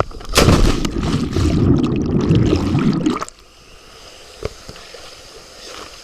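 Loud rushing noise on a waterproof camera's microphone as it is carried down a 40-foot waterfall jump. About three seconds in it cuts off suddenly to a muffled quiet as the camera plunges under the water, with one short click a little later.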